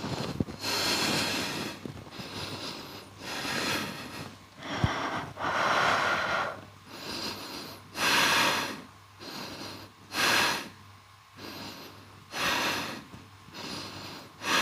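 A person breathing audibly in and out while holding a yoga headstand: about eight hissing breaths, one every second or two, some longer than others. A light thump about five seconds in.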